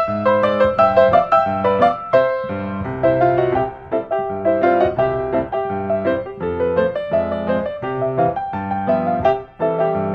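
Background piano music: a steady run of piano notes playing a melody.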